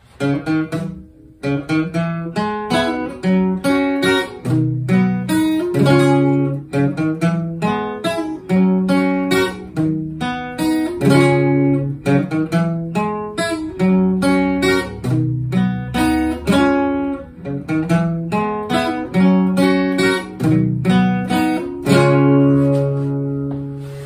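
Acoustic guitar strummed in a rhythmic chord riff, with no singing. The last chord is left ringing and fading near the end.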